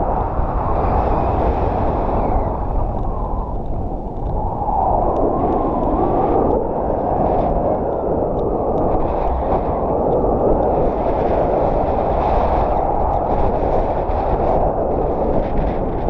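Wind rushing over an action camera's microphone in paraglider flight: a loud, steady rumble.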